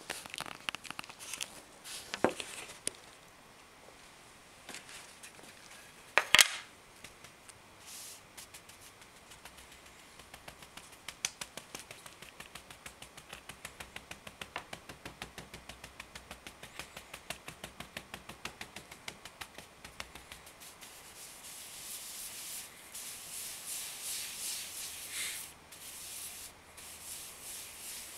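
Chalk pounce pad patted quickly on a paper lettering pattern laid on a wooden sign board, about four taps a second, then rubbed back and forth in a steady scrubbing hiss, pushing powder through the pattern's perforations to transfer the lettering. A sharp knock about six seconds in.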